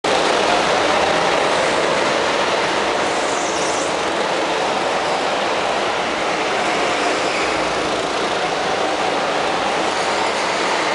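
Go-karts racing laps around an indoor track: a loud, steady drone of kart motors and tyres.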